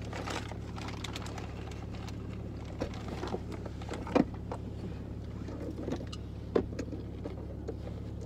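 Steady low hum inside a car, with jackets rustling as people shift and reach across the seats. Two sharp knocks, about four seconds in and again two and a half seconds later.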